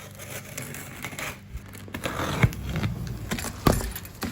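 Rustling and scattered clicks from a cardboard box and its packaging being handled, with a couple of louder knocks about two and a half and three and a half seconds in.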